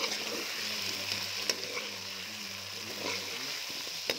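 Potatoes and meat sizzling in hot oil in a metal pot, stirred with a spatula that scrapes and clicks against the pot a few times.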